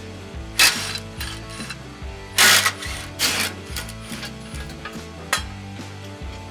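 Cordless impact driver run in three short bursts, loosening the underbody brace bolts, over steady background music.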